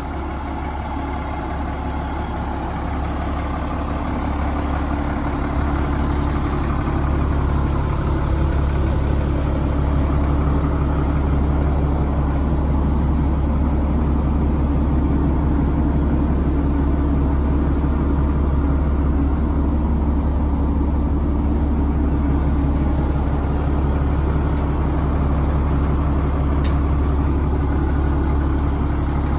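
Tanker truck's engine idling steadily, growing louder over the first few seconds as the microphone comes close to the truck.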